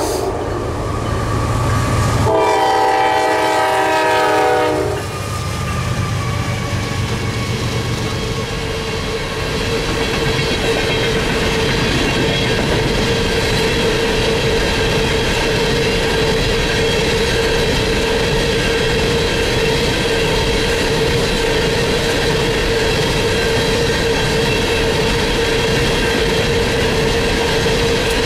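A GE Dash 9-40CW diesel locomotive's air horn sounds a multi-note chord for about three seconds, starting about two seconds in, over the rumble of the passing train. A long string of coal gondolas then rolls steadily past, with wheel and rail noise and a steady ringing tone.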